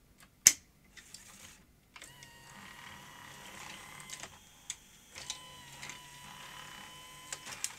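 Grundig 2x4 Super V2000 video recorder's cassette load/eject mechanism being tested on a replacement loading-motor drive belt: a click about half a second in, then the loading motor running with a steady whine for about six seconds, with several mechanical clicks. The replacement belt is the right size but a little thin, which the owner says gives too little torque, so the mechanism can stick.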